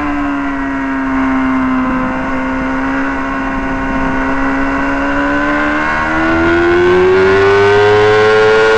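Honda Fireblade's inline-four engine at racing speed: the note drops in the first second, holds low and steady through a long leaned-over corner, then rises smoothly over the last few seconds as it accelerates out.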